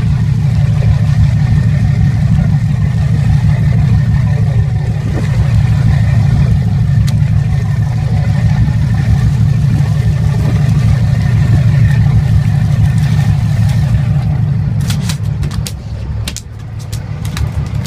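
A fishing boat's engine running steadily underway, a loud low drone. Near the end the drone eases and a run of sharp knocks comes in: a freshly caught mahi-mahi flopping and slapping on the deck.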